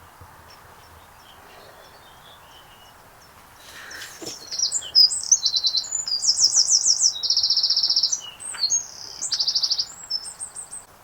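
A songbird singing: faint chirps at first, then about four seconds in a loud, fast song of varied chirps and rapid trills.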